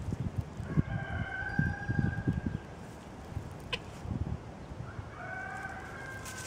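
A rooster crowing twice, each call held for about two seconds, with soft low thuds of hooves stepping in dry leaves beneath the first crow.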